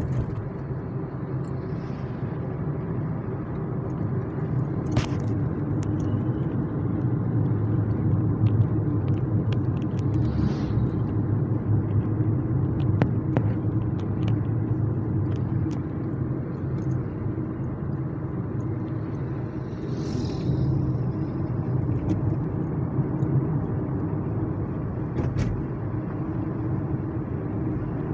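Kia Cerato driving over an uneven road, heard from inside the cabin: a steady low rumble of road and engine noise, with a few brief sharp clicks. No front-suspension knock (toque-toque) stands out; the owner credits new stabilizer-bar bushings and an end link for curing it.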